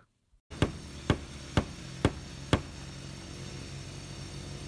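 Hammer blows, five sharp strikes about two a second, as a round conduit junction box is fixed down onto plywood slab formwork.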